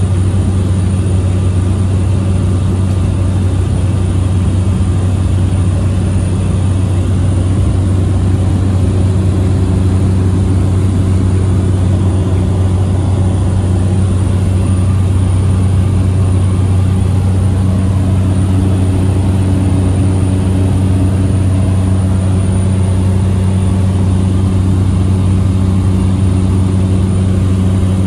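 Cessna 208 Grand Caravan's single Pratt & Whitney PT6A turboprop engine and propeller droning, heard inside the cabin: a steady, loud low hum with a thin high whine above it.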